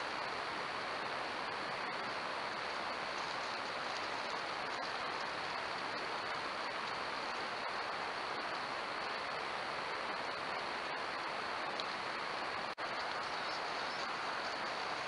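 Steady hiss from a trail camera's built-in microphone at night in woodland. It drops out for an instant about 13 seconds in, where one clip ends and the next begins.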